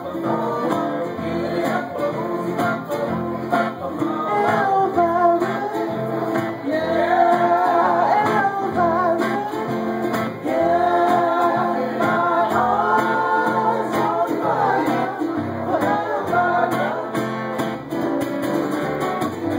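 Live Hawaiian song from a small acoustic string band: singing over strummed guitar and plucked upright bass.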